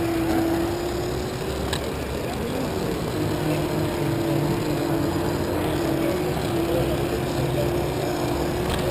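A Lego monorail's small electric motor and gear drive running steadily, a constant whine as the train carries along its track.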